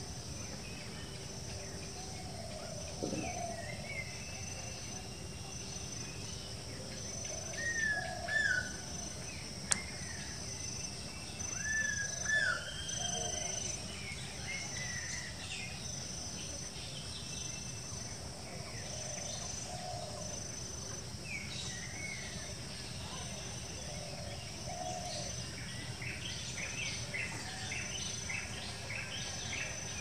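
Birds calling and chirping in the trees, with short rising-and-falling calls and a quick flurry of chirps near the end. Behind them an insect trills steadily in even pulses over a low background hum.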